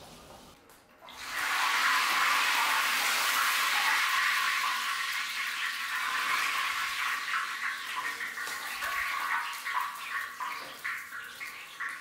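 Hot cooking oil sizzling in a large wok. It starts suddenly about a second in, holds loud and steady, then thins into scattered crackles near the end.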